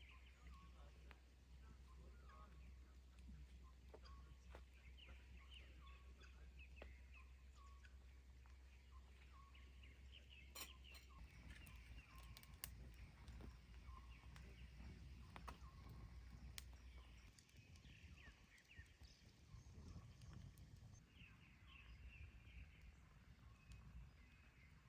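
Faint outdoor ambience of small birds chirping, with scattered sharp ticks and a low steady hum that fades out partway through.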